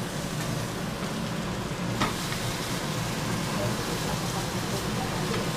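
Hamburger patties sizzling steadily in a hot frying pan while being seared, with a single light click of a spatula against the pan about two seconds in.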